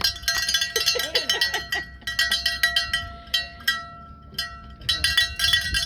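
Handheld metal bells clanging rapidly and unevenly, each strike leaving a ringing tone, as a welcome at the dock. A short whooping voice rises and falls about a second in.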